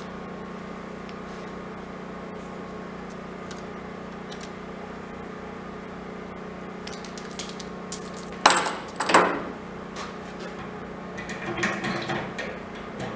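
Metal tools and parts knocked and set down on a workbench: a few sharp clinks with a brief high ringing a little past halfway, then lighter clattering near the end, over a steady low hum.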